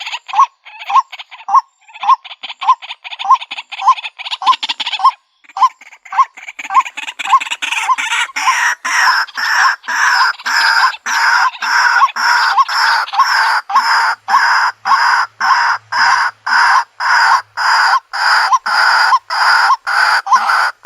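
White-breasted waterhen calling. A fast run of short, repeated notes is followed, after a brief pause about five seconds in, by louder, harsher notes repeated about twice a second in a steady rhythm.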